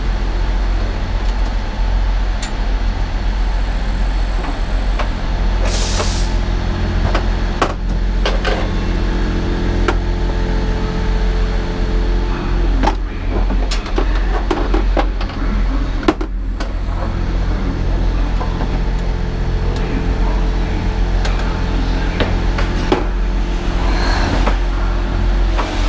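Diesel train's engine idling at a platform, a steady low hum, with a short hiss about six seconds in and scattered knocks and clicks.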